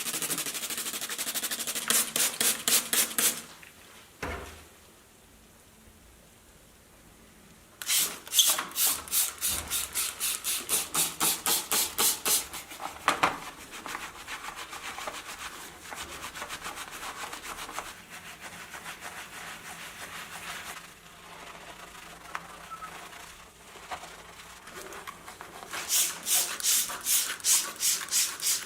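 Rhythmic back-and-forth rubbing strokes, about four a second, in bouts: one stops about three seconds in, one resumes near eight seconds and one starts again near the end. Softer, irregular scraping comes between the bouts.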